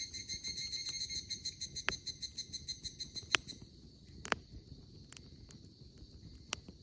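Higurashi (evening cicada) singing its rapid, ringing trill, which fades out about halfway through. A wood campfire pops sharply a few times over a low crackle.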